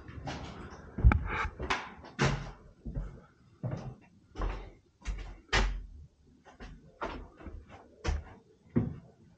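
Footsteps at a walking pace on bare wooden floorboards, a series of heavy knocks about one to two a second.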